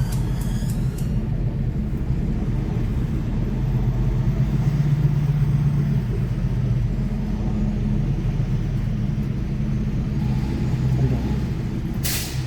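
Semi truck's diesel engine running with a steady low rumble that swells slightly midway. A short, sharp hiss comes near the end.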